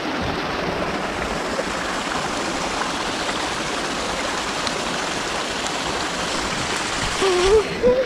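Small stream cascading steadily over rocks, a continuous rush of running water. A voice comes in briefly near the end.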